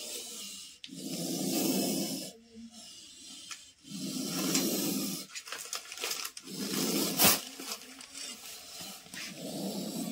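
Cobra hissing in long, repeated breaths, four in a row a couple of seconds apart, with a sharp click about seven seconds in.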